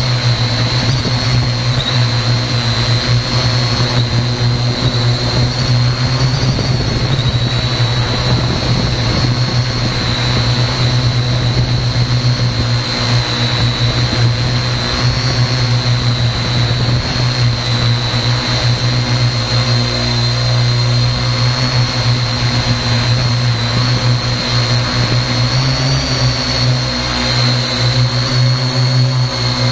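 Parrot AR.Drone quadcopter's four motors and propellers running in flight, heard close up from a camera mounted on the drone: a loud, steady buzzing hum with a high whine that wavers slightly in pitch.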